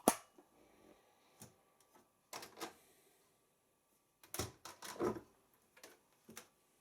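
Siemens iQ front-loading washing machine being loaded: a sharp click as the door opens, then scattered knocks and clatters as bedding goes into the drum.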